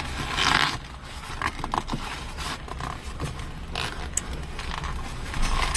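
Scraping and rustling, with scattered small clicks, as the cover is worked down over the white knob on the gear lever: the plastic and boot parts of the shift lever being handled.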